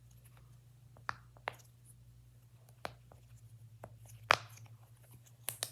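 Silicone pop-it bubbles being pressed through with a handful of sharp, irregularly spaced pops, the loudest about four seconds in; the poppet is stiff and hard to push on one side.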